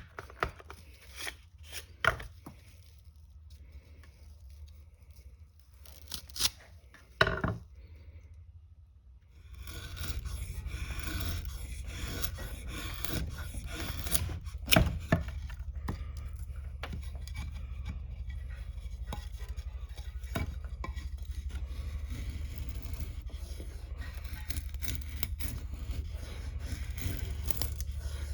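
Knife blade cutting and scraping wood. There are a few sharp separate cuts in the first several seconds, then continuous scraping from about ten seconds in over a steady low rumble.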